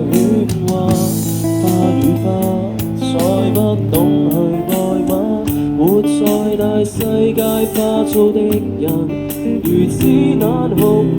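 Live band music: a voice singing a melody over guitar accompaniment.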